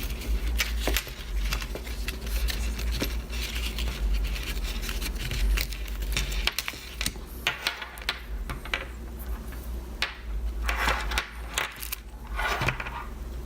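Close handling noise of wireless headphones and their packaging: irregular small clicks, taps and plastic scraping and rustling, over a low steady rumble.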